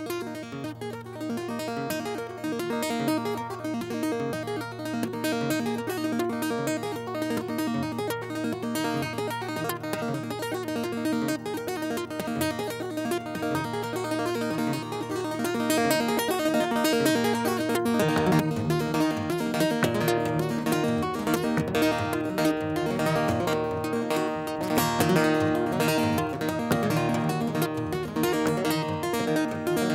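Acoustic guitar playing an instrumental piece over a repeated low bass note, turning fuller and louder about two-thirds of the way through.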